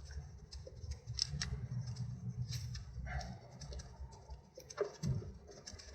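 Light clicks and taps of gear-shift actuator parts being handled, over a low steady hum. There are a few sharper clicks, about a second in, around two and a half seconds in, and near five seconds.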